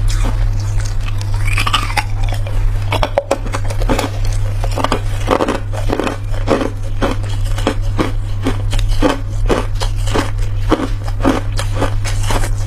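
Hard pink-dyed ice cracking and clicking as a slab is broken from a tray of frozen ice and handled: many sharp irregular cracks, thickest in the second half, over a steady low hum.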